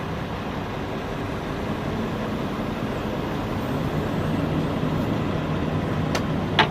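A vehicle engine running steadily, with two sharp knocks near the end.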